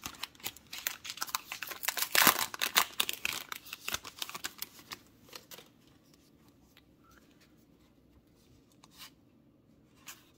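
Plastic wrapper of a Topps Heritage baseball card pack crinkling and tearing open for about the first four seconds. A few soft clicks follow as the cards are pulled out and handled, then it goes quiet.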